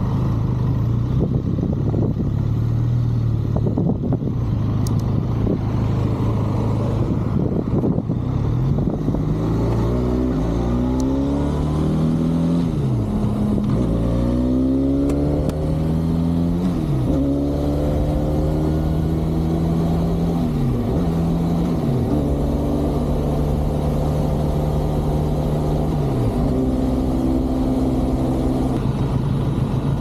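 Benelli 502C's 500 cc parallel-twin engine running steadily at low revs. About ten seconds in it pulls away, revs climbing and dropping at each upshift about four times, then it holds a steady cruise.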